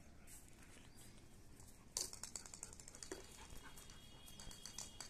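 A German Shepherd's claws clicking on a concrete floor as it walks: faint scattered taps, with a sharper click about two seconds in.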